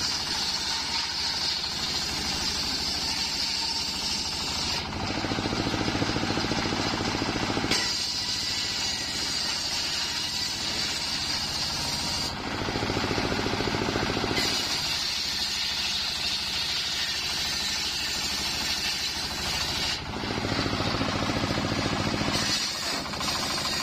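Homemade engine-driven circular saw bench ripping mahogany lengthwise, the large blade cutting through one board after another. The running note of the saw and its drive changes every few seconds as each cut starts and ends.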